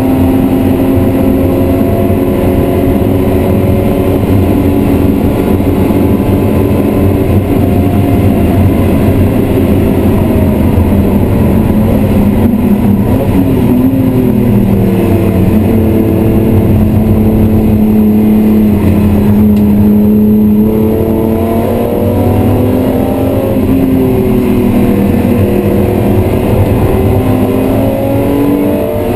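BMW E36 M3's 3.0-litre straight-six, heard from inside the cabin, running hard at high revs. Its note falls about halfway through as the car slows for a corner, then climbs again as it accelerates away.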